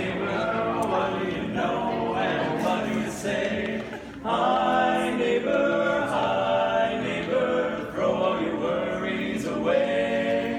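A male barbershop quartet singing a cappella in close four-part harmony, holding sustained chords, with a brief break about four seconds in.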